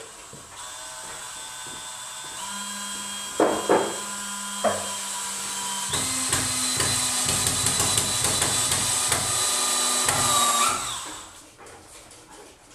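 Cordless drill running in one long stretch into a wooden frame board, its motor whine steady, with a few sharp knocks a little after three seconds. From about six seconds it runs louder and rougher under load, then winds down and stops near the end.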